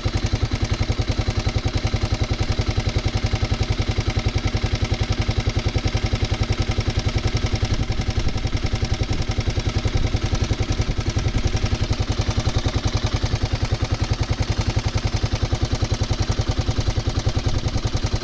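Kawasaki D-Tracker 250's single-cylinder four-stroke engine idling steadily with a hard, rapid clacking ("gachigachi") over the running, which the owner takes for tappet noise from the valve train.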